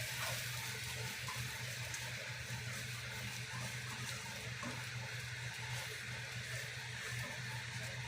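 Egg and sweet potato flour batter sizzling steadily as it fries in a pan, over a steady low hum.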